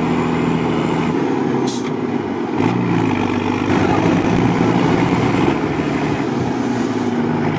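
Mercedes-Benz Unimog's diesel engine running steadily under load as the truck drives over an uneven dirt track. The engine note rises about two and a half seconds in, and there is one brief knock a little before that.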